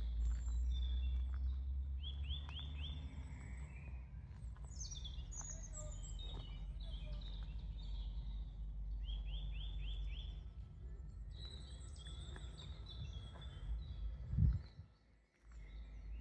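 Several songbirds chirping and singing, with quick runs of repeated chirps, over a steady low rumble on the microphone. A single thump near the end is the loudest sound, with a brief dip almost to silence just after.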